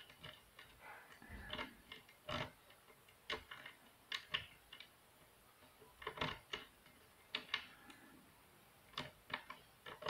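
Faint, irregular small metallic clicks and scrapes from hairpin wires being worked inside a Volkswagen car door-lock cylinder to press down its wafers.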